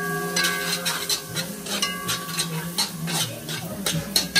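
A metal spoon stirring fried seasoning in a large metal pot, scraping and clinking against the pot again and again.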